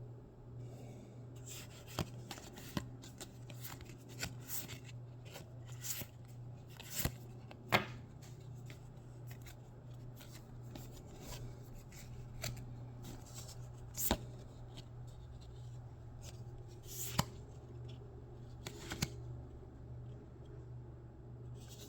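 Pokémon trading cards from a freshly opened booster pack being handled and slid through the hands, with scattered short crisp clicks and rustles over a steady low hum.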